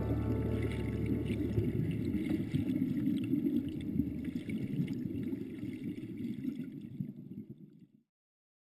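River water flowing and gurgling, a steady low rush that fades away and stops about eight seconds in.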